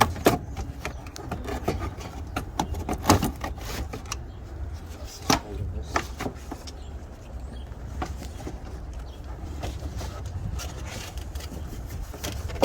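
Scattered clicks, knocks and light scrapes of hand work on car parts being taken off, over a low steady hum.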